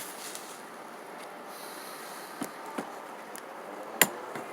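Low steady hiss with a few light clicks and taps, the sharpest about four seconds in: small carburetor parts being handled and fitted during reassembly.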